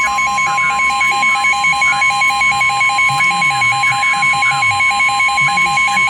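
NOAA Weather Radio warning alarm tone: one steady, loud, high tone that announces a severe thunderstorm warning. A second alarm beeps rapidly over it, about five beeps a second.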